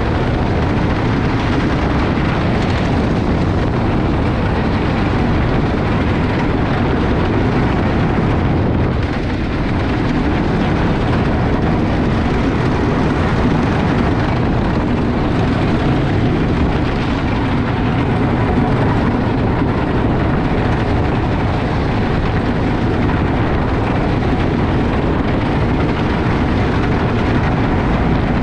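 Wooden roller coaster heard from the train during the ride: a steady rumble of the wheels on the wooden track mixed with wind rushing over the microphone.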